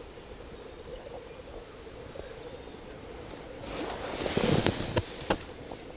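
Distant black grouse bubbling faintly at a spring lek, a low steady murmur. About four seconds in, a burst of rustling with a few knocks covers it for a second or two.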